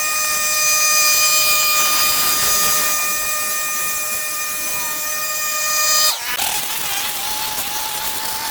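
A motorised machine running with a steady high whine over a hiss; about six seconds in the sound changes suddenly to a lower, wavering whine.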